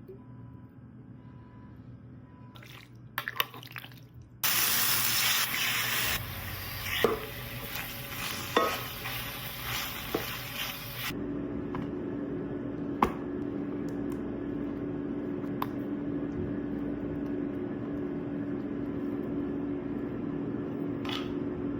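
Marinated chicken strips sizzling in hot oil in a pan while a utensil stirs them, with a few knocks against the pan. About eleven seconds in the sizzle gives way to a steady low hum with a few light clicks.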